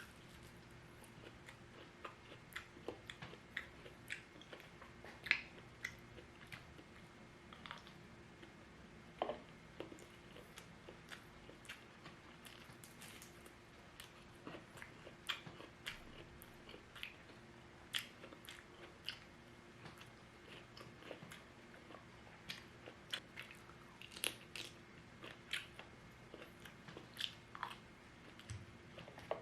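Close-miked eating: crunchy bites and chewing of fried shrimp and lumpia spring rolls, with frequent short crackles and wet mouth sounds at an irregular pace.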